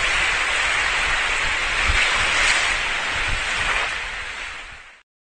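A steady rushing noise like breaking surf, with a couple of faint low knocks, that fades away and stops about five seconds in.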